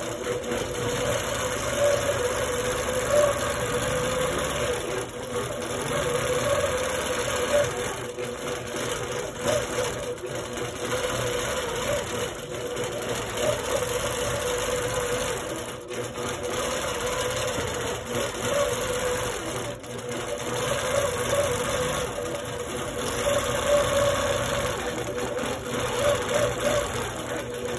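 APQS Millennium longarm quilting machine stitching steadily, its needle running at a constant pace while the Quiltpath computer guidance moves the head through the pattern.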